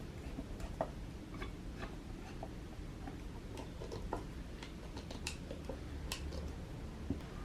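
Scattered light clicks and taps at an irregular pace over a low steady hum.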